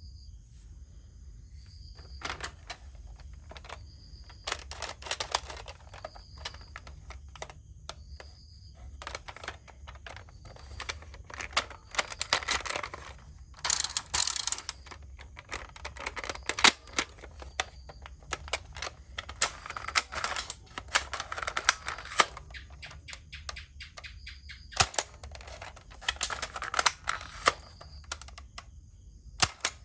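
Plastic toy guns being worked and fired: repeated bursts of rapid mechanical clicking and rattling, each lasting a second or more, with single sharp clicks between them.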